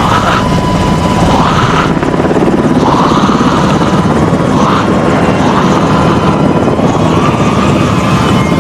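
Helicopter flying, its rotor blades giving a steady, rapid chop.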